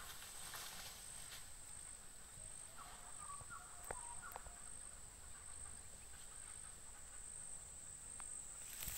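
Faint, steady high-pitched insect buzzing, like crickets or cicadas. A few faint short chirps come through near the middle.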